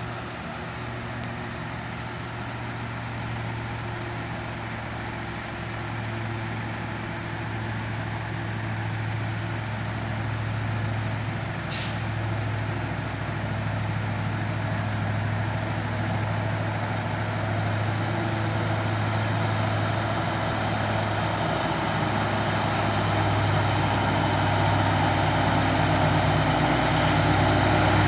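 Heavy trailer truck's diesel engine running steadily at a low pitch while climbing a steep hill, growing gradually louder.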